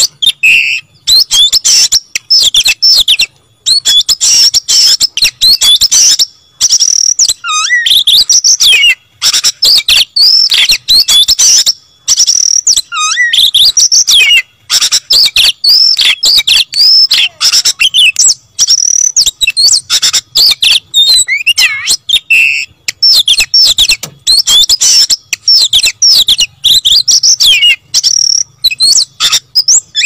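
Caged oriental magpie-robin (kacer) singing loudly and without letting up: a fast, varied stream of high whistles, sliding notes and trills with only brief pauses.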